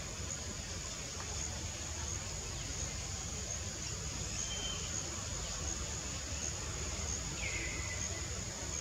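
Forest ambience: a steady high-pitched insect chorus over a low rumble. A short whistle comes about halfway through, and a call slides down in pitch near the end.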